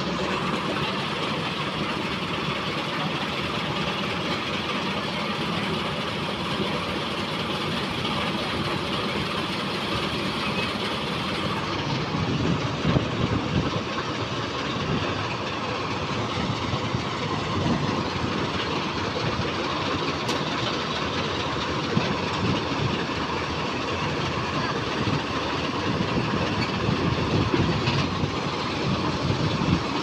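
Kartar 4000 combine harvester running at close range: a steady mechanical engine-and-drive noise with a busy rattling clatter. About twelve seconds in the clatter gets heavier, with a few louder knocks.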